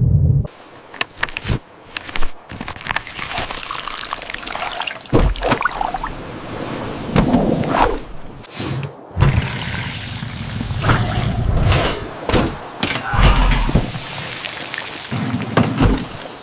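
Liquid pouring and trickling in short, abruptly cut segments, with a few sharp clicks or knocks near the start.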